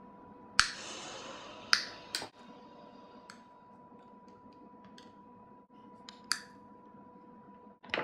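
Side-cutting pliers snipping small green plastic Silensor-sl connector parts off their sprue frame: sharp snaps, the two loudest about half a second and under two seconds in, then a few fainter clicks. A faint steady tone runs underneath.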